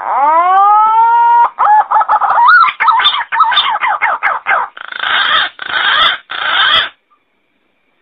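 Green pigeon (punai) call: a long upward-sliding whistle, then a run of quick warbling whistled notes, ending in three harsh rasping notes. It stops abruptly about seven seconds in.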